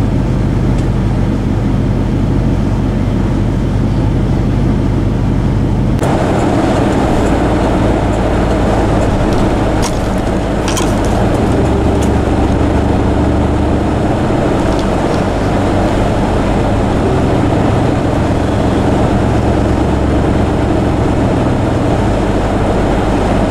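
A vehicle's engine and road noise heard from inside while driving, steady and loud, with a few short clicks about ten to twelve seconds in.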